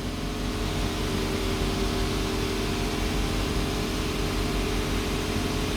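Steady hum and air rush of a running workshop machine, unchanging throughout.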